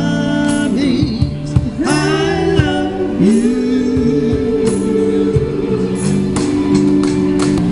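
A live band playing with singing over an electric keyboard, loud and continuous.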